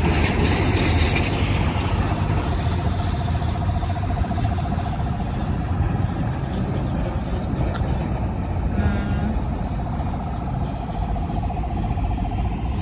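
Road traffic rumbling steadily, with a steady engine drone and wind on the microphone. A brief higher tone sounds about nine seconds in.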